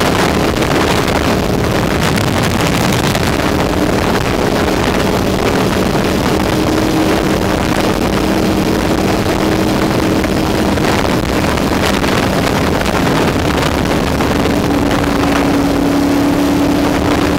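Ducati L-twin motorcycle engine running steadily at highway cruising speed, with heavy wind rushing over the on-bike microphone.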